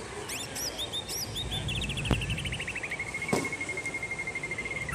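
Bird song: a few short, high chirps, then a fast trill that slides down slightly in pitch and holds steady until near the end. Two faint knocks come through along with it.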